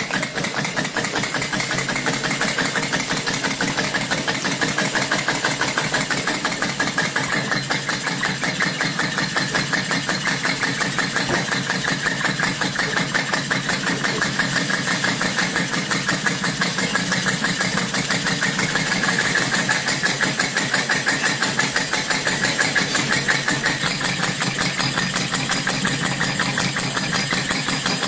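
Working model of Stephenson's steam engine running steadily, with a fast, even mechanical beat.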